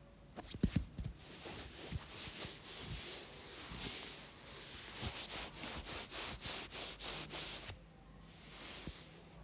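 Fingertips rubbing and scratching through hair on the scalp during a head massage: a crackly, rustling scratching made of many quick strokes, which starts about half a second in and stops near the end.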